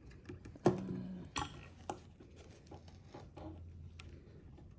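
Small clicks and rustles of hand work at a fly-tying vise: thread being wrapped and handled around the fly and tools. Two sharper clicks come about two-thirds of a second and a second and a half in.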